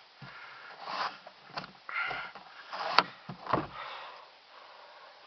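Handling noises from a car's sun visor being moved by hand: soft plastic rubs and knocks, with one sharp click about three seconds in. A few breathy sniffs close to the microphone.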